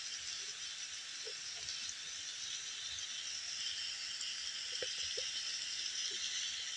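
Diced carrot, green beans and Chinese sausage sizzling quietly in a wok: a steady high hiss with a few faint ticks.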